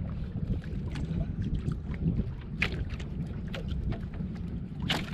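Steady low rumble of wind and water around an outrigger fishing boat at sea, with scattered sharp clicks and taps, the loudest near the end.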